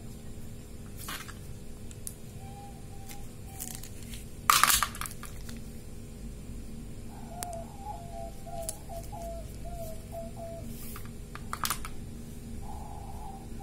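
Handling noise from a metal-and-plastic pipe cutter and a short length of plastic pipe on a table top. Scattered light clicks, with a sharp knock about four and a half seconds in and a smaller clatter near the end.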